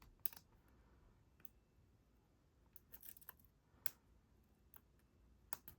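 Faint, scattered clicks and small scrapes of a lock pick and tension tool working the pins inside a Squire Vulcan P4 padlock's keyway, with a quick run of clicks in the middle.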